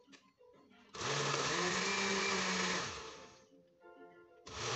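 Oster countertop blender pulsed in short bursts while blending a smoothie: the motor spins up about a second in, runs for about two seconds, winds down, and starts again near the end.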